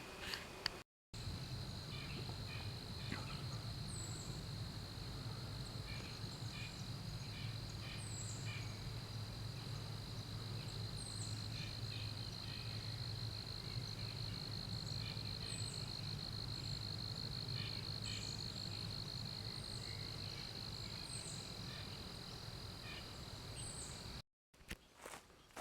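Insects trilling in one steady high note, with short high bird chirps every couple of seconds and a low steady hum underneath.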